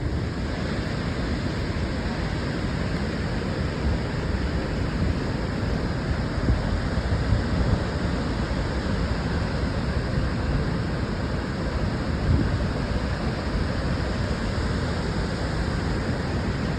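Victoria Falls' water rushing steadily, a continuous deep rushing noise, with wind rumbling on the microphone.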